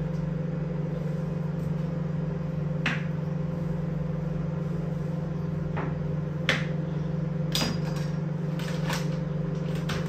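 Food containers and kitchenware being handled: a handful of sharp clicks and knocks, some in quick succession near the end, over a steady low hum.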